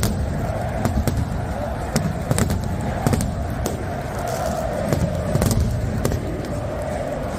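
Fireworks bursting overhead, a string of irregular sharp bangs and crackles over the steady din of a packed football stadium crowd.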